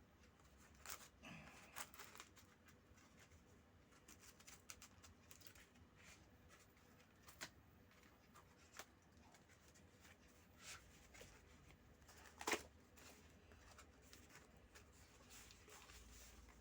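Faint handling of packing material: scattered rustles and small clicks as the wrapping is worked open, with one sharper click about twelve seconds in.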